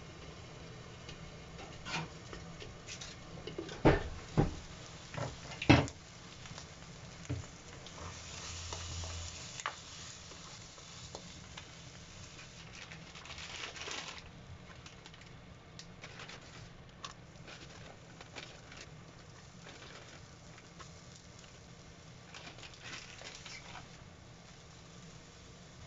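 Egg and bacon sizzling in a frying pan, a steady low hiss that swells louder for a moment twice. In the first six seconds a few sharp knocks and clinks of utensils against the cookware stand out over it.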